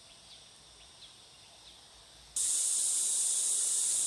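Faint outdoor ambience, then about two and a half seconds in a loud, steady high-pitched hiss cuts in abruptly.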